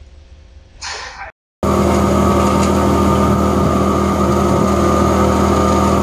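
Wood chipper running: a loud, steady machine hum that starts abruptly about a second and a half in, after a fainter stretch and a short gap.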